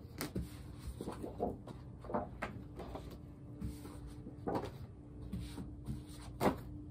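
Large paper art prints being shuffled and flipped through by hand: irregular rustles and flaps, a couple of them louder, over a faint steady hum.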